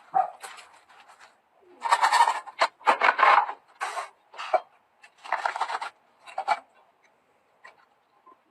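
Handling noise: a run of short scraping and rubbing sounds, about six in a row, followed by a few light clicks near the end.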